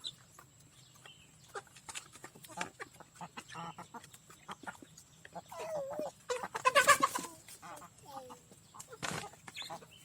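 Aseel hens clucking amid scattered short clicks, with one loud, drawn-out squawk about seven seconds in.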